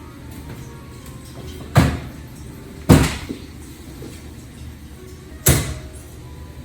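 Three sharp knocks, about a second and then two and a half seconds apart, over a steady low hum.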